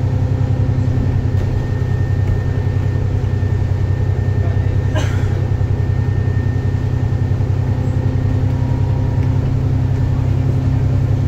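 Alexander Dennis Enviro400MMC double-decker bus heard from inside the passenger saloon while on the move: a steady low engine and road drone with a faint whine above it. A single short click or rattle about five seconds in.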